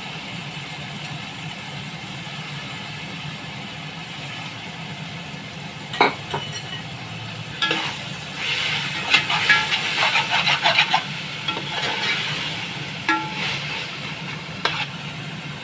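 Masala of fried onions, tomatoes, chillies and fresh coriander and mint sizzling in a pot over a steady low hum, with a ladle stirring and scraping against the pot in spells of clinks from about six seconds in. The frying is cooking off the raw smell before the chicken is added.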